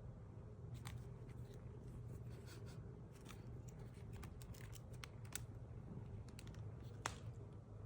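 Quiet room tone: a steady low hum with faint, scattered small clicks and ticks, one slightly sharper tick near the end.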